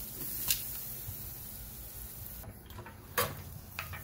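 Metal tongs handling a skirt steak on a bed of burning lump charcoal: two sharp clicks, about half a second in and about three seconds in, with a smaller one near the end, over a low steady background.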